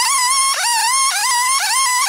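Stihl chainsaw ripping along a plank. Its high whine repeatedly dips as the chain loads up and then climbs back, about twice a second.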